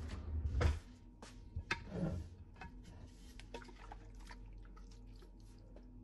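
Scattered light clicks and knocks of kitchenware being handled while an empty pan heats, with a louder knock and rustle about half a second in and another around two seconds in.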